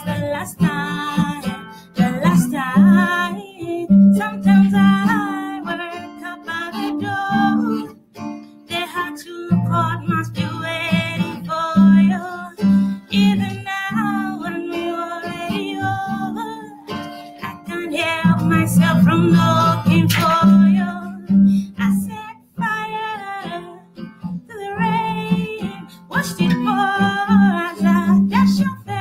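A woman singing a slow pop ballad, accompanying herself on a strummed acoustic guitar.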